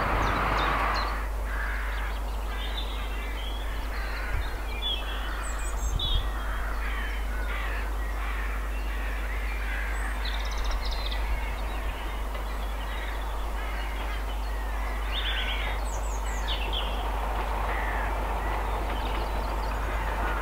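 Birds calling on and off over a steady low rumble. Near the end, an approaching diesel locomotive is faintly heard in the distance.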